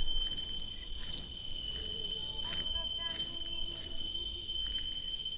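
Night insects, crickets, trilling: one steady high-pitched drone, with three quick higher chirps about two seconds in.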